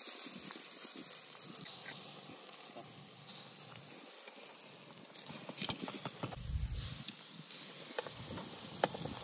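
Food sizzling on a barbecue grill, a steady hiss with a few sharp crackles.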